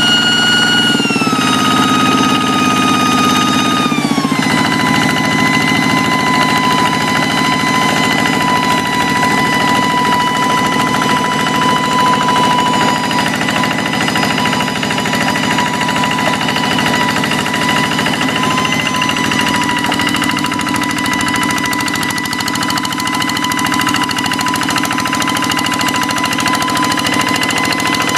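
Hand tractor's Kubota single-cylinder diesel engine running with a fast, even chug and a high whine. The engine speed and the whine drop in two steps in the first few seconds, then hold steady.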